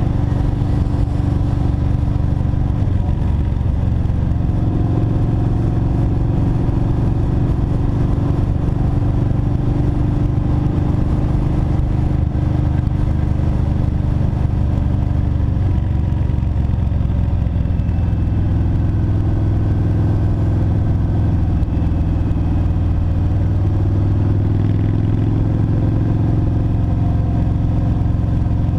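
Kawasaki Vulcan Mean Streak's V-twin running at steady cruising speed, heard close up from the handlebars. The engine note shifts pitch a few times, about 4 seconds in and again around the middle, as the throttle changes.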